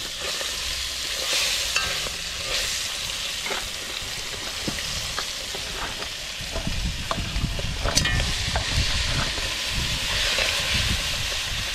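Blue crab pieces frying in hot oil in a steel pot, sizzling steadily as more crab goes in and is turned. Metal spoon clinks and scrapes against the pot now and then, with one ringing clank about eight seconds in.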